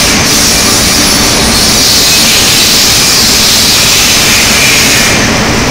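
Loud, steady industrial roar of a steel melt shop at work around the induction furnaces, a dense hiss over a low hum; the highest part of the hiss drops away about five seconds in.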